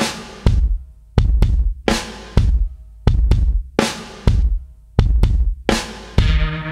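Background music: a drum-led beat of heavy hits with deep bass, each ringing out, about one and a half a second; sustained bass notes come in near the end.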